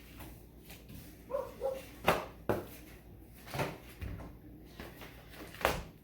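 A few sharp knocks and thumps of packages and comics being handled and set down on a table, the loudest about two seconds in. A short dog bark or whine is heard about a second and a half in.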